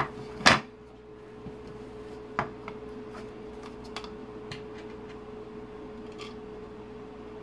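Light clicks and knocks from a plastic speedometer housing being handled and turned over on a desk, with one sharp knock about half a second in and a smaller one about two and a half seconds in. A steady hum runs underneath.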